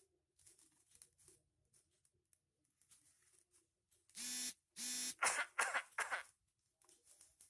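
Foil-covered paper rustling and crackling as it is folded and creased. About four seconds in come two short sounds, each holding one steady pitch, and then a second of louder crinkling.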